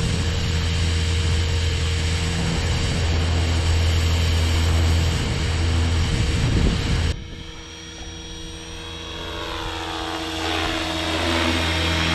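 Align T-Rex 500 XT electric RC helicopter in flight, its rotor blades and motor making a steady drone. The sound drops away sharply about seven seconds in, then builds back up over the next few seconds.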